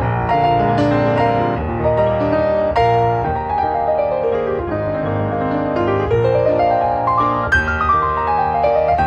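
Background piano music, flowing runs of notes sweeping down, then up, then down again.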